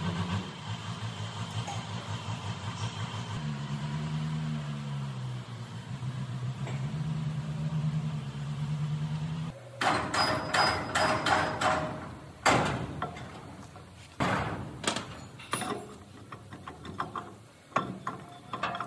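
An engine runs steadily, its pitch rising and falling briefly, then cuts off suddenly about halfway through. After it, a run of sharp metal clanks and knocks comes as the heavy steel parts of a wheel loader's planetary wheel hub are handled and fitted.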